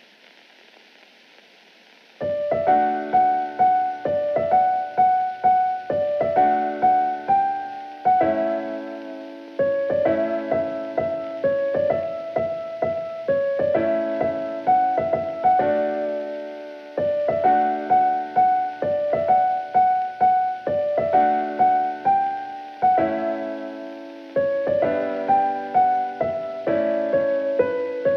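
Background piano music playing a gentle repeating melody of struck notes, starting about two seconds in after a faint hiss.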